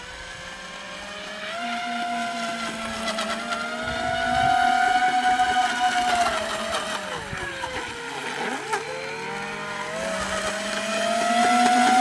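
Homemade RC airboat's small electric motors spinning two air propellers, giving a high, steady whine over water spray. The pitch drops briefly about two-thirds of the way through as the boat eases off, then climbs back up.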